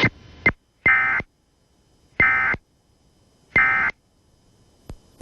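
Emergency Alert System end-of-message data tones, put through a spiral audio effect. A short blip is followed by three short, harsh buzzing bursts of digital code about 1.3 seconds apart.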